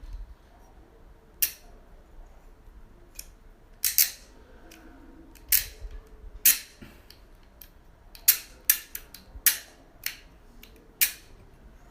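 Ratchet cable cutter clicking as its blade and handle are worked by hand: a dozen or so sharp, irregular clicks, some in quick pairs. The blade is stiff to move after cutting and needs great force.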